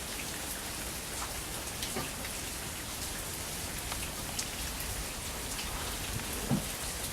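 Steady rain falling during a thunderstorm, an even hiss with scattered drops ticking close by.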